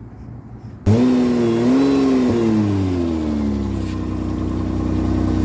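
Hyundai Santa Fe engine starting about a second in: the revs flare up, fall back over a couple of seconds and settle into a steady idle, through an exhaust whose cracked flex pipe has just been patched with JB Weld and fiberglass wrap.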